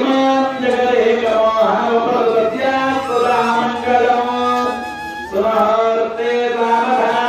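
Priests chanting verses in a slow, melodic sung recitation, long notes held and gliding between pitches.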